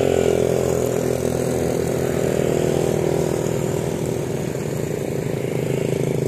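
An engine running at a steady speed, its note even throughout.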